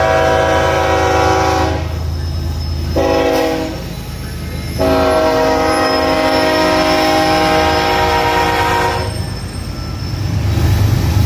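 Diesel locomotive air horn sounding a chord: a long blast that cuts off about two seconds in, a short blast about a second later, then a long blast of about four seconds, the close of the long-long-short-long grade-crossing signal. Under it the locomotive's engine rumbles steadily, growing louder near the end as the train comes by.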